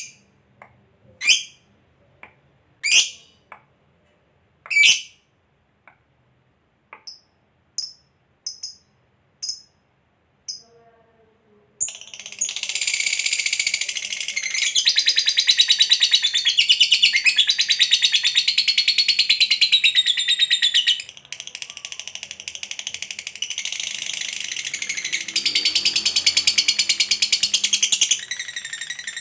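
Lovebird calling: a few sharp, separate high chirps, then from about twelve seconds in a long, unbroken, very rapid high chattering trill, the 'ngekek' song, with one short drop near the two-thirds mark.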